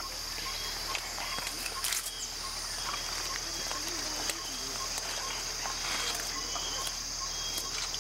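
A steady high-pitched drone of forest insects, with scattered crisp snaps and crunches from mountain gorillas chewing on plant stems close by.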